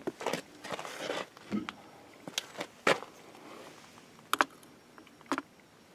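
Handling noise: a few light clicks and knocks, with some brief rustling in the first second, as spinning reels are lifted off and set down on a digital scale on a plastic tackle box.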